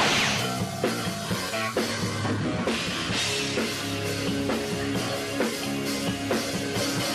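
Rock music with drums and guitar.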